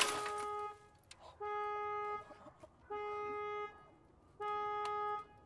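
A steady horn-like electronic beep sounds four times, each just under a second long, about one and a half seconds apart.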